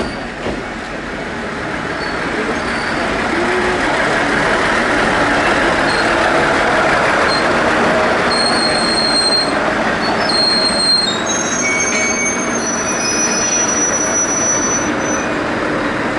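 Tenryu Hamanako Railroad TH2100-series single-car diesel railcar passing close by. Its running noise grows louder over the first few seconds and then holds steady. From about halfway through, the wheels give short, high, thin squeals against the rails.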